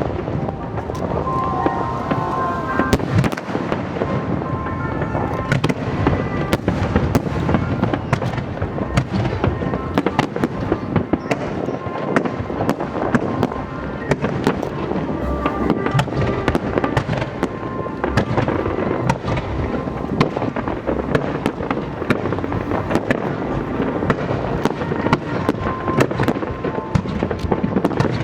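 Aerial fireworks display: a dense, continuous run of bangs and crackles, many sharp reports a second, with music playing underneath.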